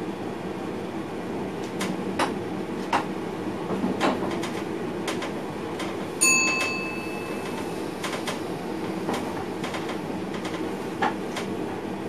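Steady running noise inside a moving train's driver's cab, with scattered sharp clicks and knocks from the wheels over the track. A single bell-like ding with a sudden start, fading over about half a second, is the loudest sound, just after six seconds in.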